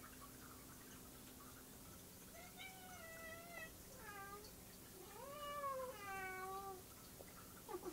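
A domestic cat meowing three times: a long call, a short one, then a longer call that rises and falls.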